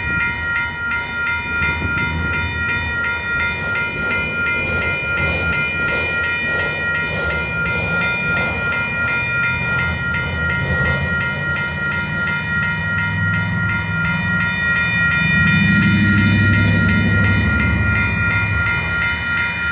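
Freight train of autorack cars rolling past: a steady low rumble of wheels on rail with regular clicking, swelling for a few seconds near the end. Over it the grade-crossing warning bell rings on and on at one steady pitch.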